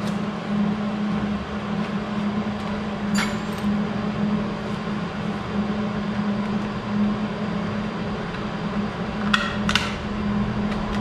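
A steady mechanical hum, with a sharp click about three seconds in and a few light clicks near the end as the plastic parts of a welding helmet are handled.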